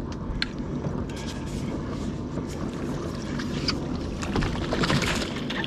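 Wind on the microphone and water lapping at a small boat's hull, with a few faint clicks and knocks from rod and reel handling.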